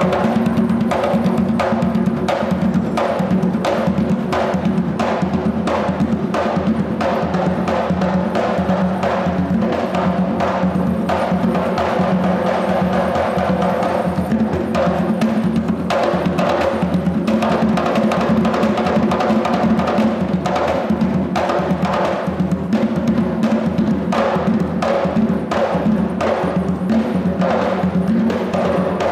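Music carried by quick, dense drumming over steady low tones.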